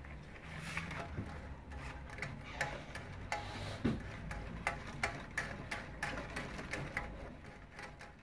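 Spiral binding coil being rolled in by hand through the punched holes along the edge of a stack of paper, clicking and ticking irregularly as each turn feeds into the next hole.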